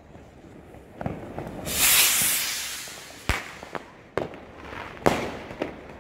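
A New Year's firework rocket launching with a loud hissing whoosh about two seconds in that fades over a second. Sharp firecracker bangs follow, one at a time, each about a second apart.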